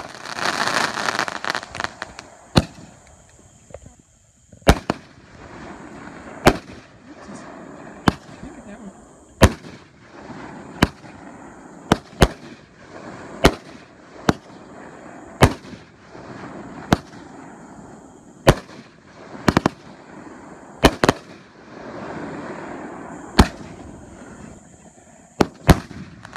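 Aerial fireworks going off shot after shot: a sharp bang every second or two, sometimes two close together, with crackling and fizzing between the reports. A loud crackling burst comes in the first couple of seconds.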